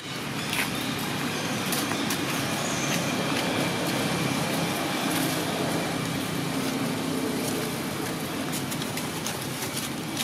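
Steady noise of road traffic, a motor vehicle running close by without a break.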